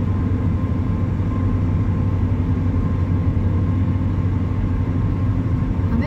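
Steady low rumble of a car's engine and tyres heard from inside the cabin while driving through a road tunnel, with a faint steady whine above it.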